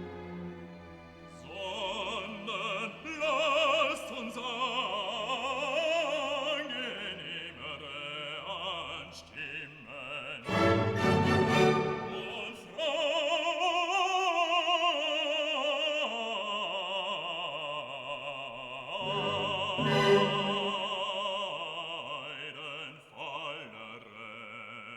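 Background music: classical operatic singing, the held notes wavering with vibrato, over an orchestral accompaniment.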